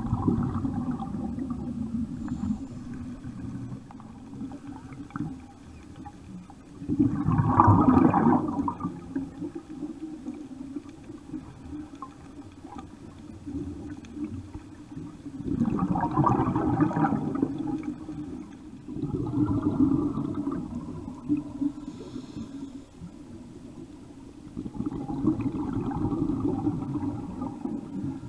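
Scuba regulator breathing heard underwater: four gurgling surges of exhaled bubbles, each a second or two long and several seconds apart, over a steady low rumble.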